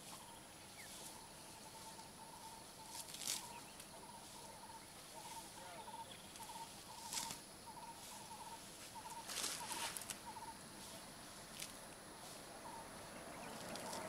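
Faint wild outdoor ambience: a small animal's call repeats in short pulsed notes, two to three a second, for most of the first ten seconds, then stops. A few brief rustling bursts come in between, over a steady faint high whine.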